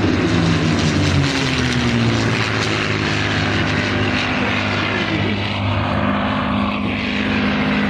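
Piston engines of a P-51 Mustang and a Zero flying low overhead. One plane passes close, its engine note dropping slightly as it goes by, then the two keep droning on together.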